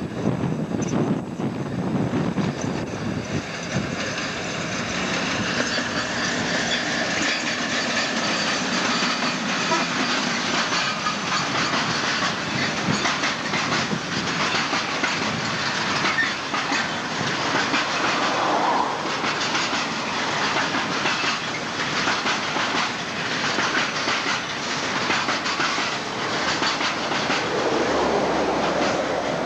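Class 56 diesel locomotive with its Ruston-Paxman V16 engine running as it passes, the engine's rumble heard mostly in the first few seconds. Then a long rake of covered steel wagons runs by, with a steady clickety-clack of wheels over rail joints.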